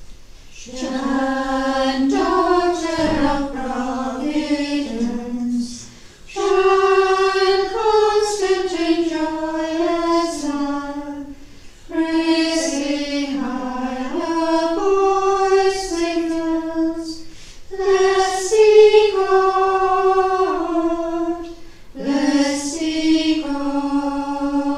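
A small choir of women's voices singing a devotional hymn unaccompanied, in phrases of about five seconds with short breaks between them.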